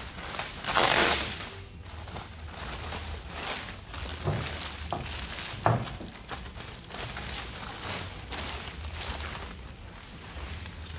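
Plastic packaging wrap crinkling and rustling as it is pulled off a steel cargo basket, loudest about a second in. There are a couple of sharp knocks about four and six seconds in.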